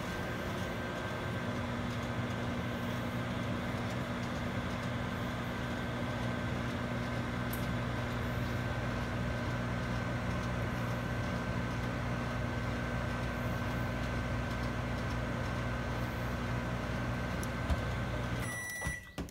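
Microwave oven running a short heating cycle: a steady hum with a whine that rises as it starts up and then holds. It cuts off near the end, followed by short beeps.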